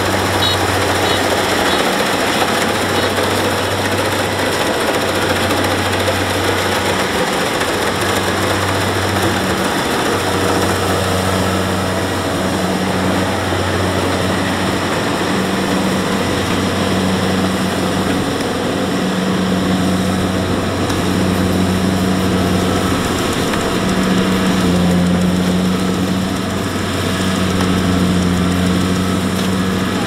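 Kubota DC-70 rice combine harvester's diesel engine running under load while it cuts and threshes rice, a loud steady mechanical drone. A low hum under it comes and goes every second or two.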